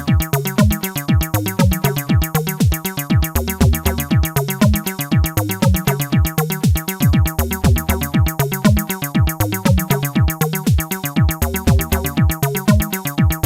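Hardware house groove: a Korg EM-1 groovebox plays a steady kick about twice a second with hi-hats, under a WMD Legion analogue bassline and a staccato Moog Mother-32 synth riff.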